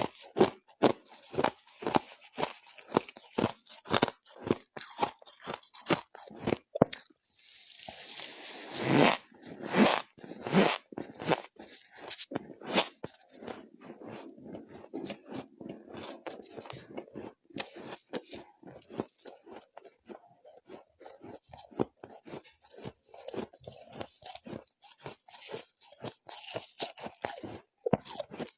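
Close-up crunching and chewing of shaved ice or freezer frost, with sharp bites about twice a second early on and softer, uneven chewing later. A longer, louder stretch of crunching comes about eight seconds in.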